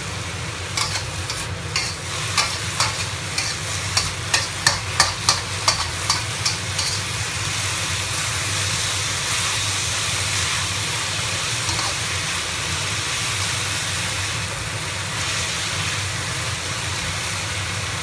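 Steel spatula striking and scraping a wok as shredded potatoes are stir-fried: a run of sharp clanks about two a second for the first six seconds or so, then the steady sizzle of the potatoes frying in oil. A steady low hum lies under it all.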